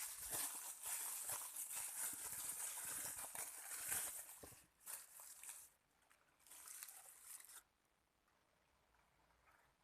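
Packaging being unwrapped by hand, crinkling and rustling continuously, then in two shorter bursts before it stops about three-quarters of the way through.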